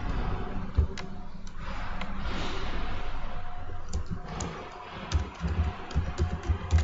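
Computer keyboard typing: a single keystroke about a second in, then a quick run of keystrokes in the last two seconds, over a steady background noise.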